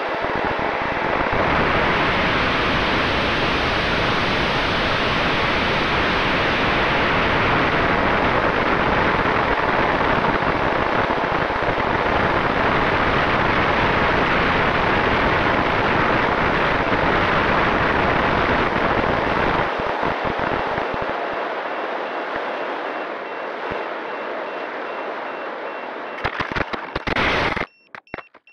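Loud, steady rush of air over an on-board camera on a Multiplex FunJet Ultra 2 electric pusher jet in fast flight, with a faint steady whine from the motor and propeller. Over the last several seconds the rush eases, then rough scraping comes as it belly-lands on gravel. The noise stops abruptly near the end and a repeated high beep begins.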